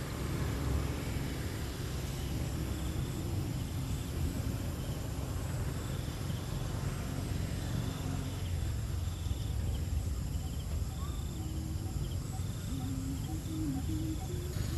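Outdoor ambience: a steady low rumble with faint, short, high chirps repeating over it.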